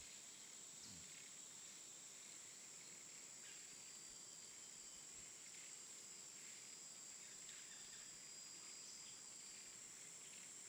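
Faint outdoor ambience under a steady, high-pitched insect drone, as of crickets.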